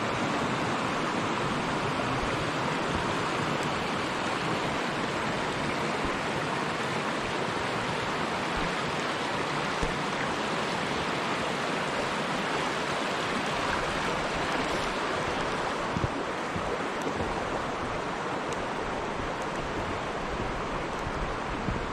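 Shallow river rushing steadily over small rapids, a continuous even rush of water.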